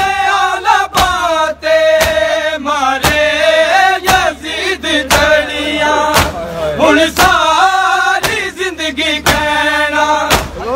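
Men's voices chanting a Shia noha, with a crowd striking their chests in unison (matam) about once a second.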